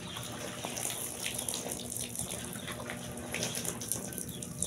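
Water poured from a plastic jug splashing onto a plastic rain suit and running off onto the ground, a steady splashing pour as the suit is tested for waterproofing.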